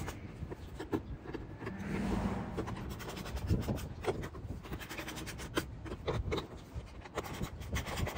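A hand wrench turning bolts through the wall of a plastic motorcycle top box: irregular clicks and scraping of metal against plastic.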